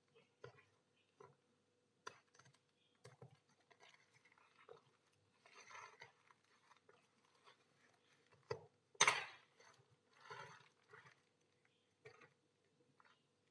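Plastic mailer packaging being cut and torn open and pulled off a shrink-wrapped plastic box: crinkling rustles with scattered clicks and taps, the loudest rustle about nine seconds in.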